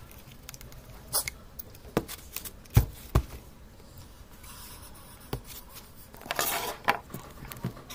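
Handling noise from a mini projector being worked on: scattered clicks and knocks of small plastic parts and a tool being moved and set down, the loudest two knocks about three seconds in, with a short scraping rustle about six and a half seconds in.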